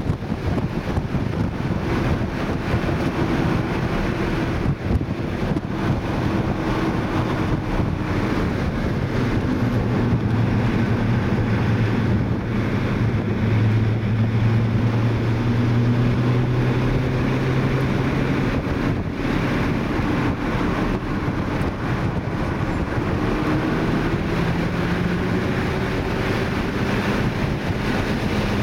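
2012 Mini Cooper S's turbocharged four-cylinder engine heard from inside the cabin at track speed. Its note holds steady through the middle, drops about two-thirds of the way through, then climbs again near the end, over a constant rush of wind and road noise.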